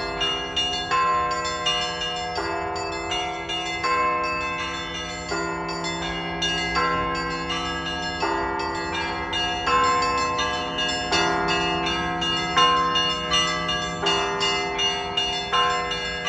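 Russian Orthodox church bells ringing in a zvon. Small bells are struck several times a second in a quick repeating pattern, larger bells come in every few seconds, and the deep hum of a big bell runs underneath.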